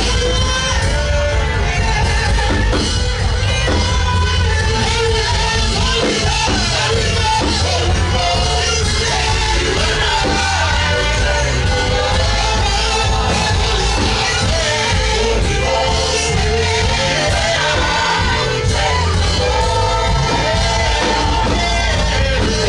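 Live worship music: a band with heavy bass and drums, with a singer and congregation singing loudly, and some shouting.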